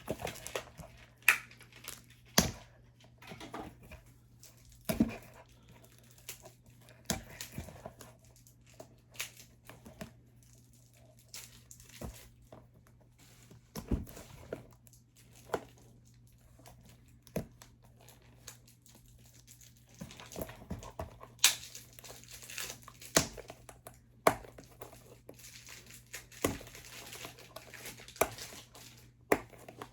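Cardboard and plastic packaging being handled: crinkling and rustling, with scattered light taps and knocks as boxes and their contents are moved. The crinkling grows denser for a few seconds about two-thirds of the way in.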